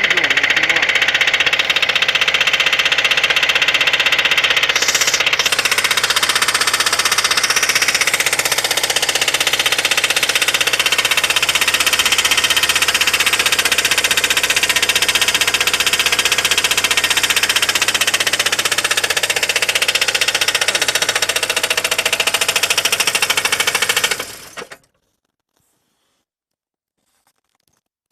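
VAZ-2109 (Lada Samara) engine running with a loud, rapid, regular knock of unknown cause. The owner wonders whether camshaft play was behind it. About 24 seconds in the engine is switched off and the sound stops abruptly.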